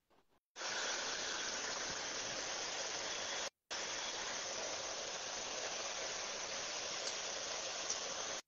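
Steady hiss of line noise from a newly joined guest's audio feed on a split-screen live video call. It drops out for a moment about three and a half seconds in and cuts off abruptly near the end.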